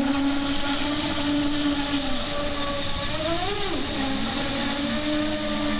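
Twin brushless outrunner motors of an RC race boat running at speed: a steady electric whine that dips in pitch and swings back up about three seconds in, then splits into two close pitches near the end.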